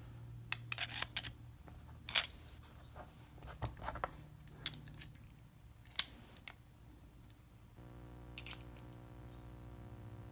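Scattered sharp metal clicks and short scrapes from a screwdriver working at a US General round-body padlock, prying at the bottom plate that holds its core in.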